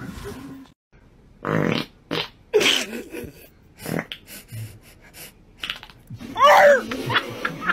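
A puppy vocalising: several short, rough, noisy blasts, then a wavering whine that rises and falls, about six and a half seconds in.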